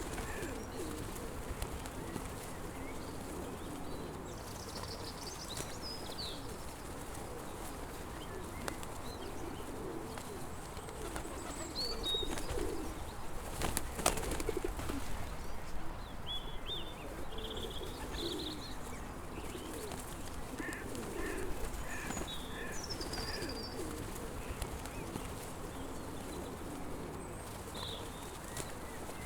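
Pigeons cooing over and over, with small birds chirping now and then above them. There is a single sharp click about halfway through.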